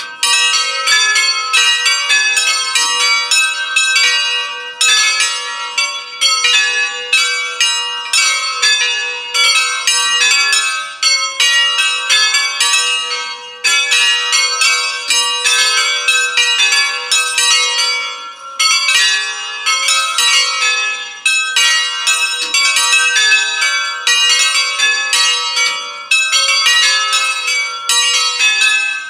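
A ring of five church bells by the Allanconi foundry, tenor in A4, swung full circle by hand in a complete peal (distesa). The strokes of all five bells overlap in a continuous, loud, uneven clangour.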